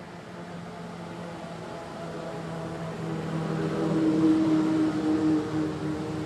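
A motor engine passes by: a steady hum that grows louder to a peak about four seconds in, then eases off.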